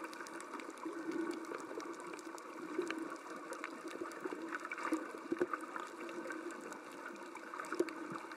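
Muffled underwater ambience on a coral reef, heard with the camera submerged: a steady watery hiss with many small irregular clicks and crackles.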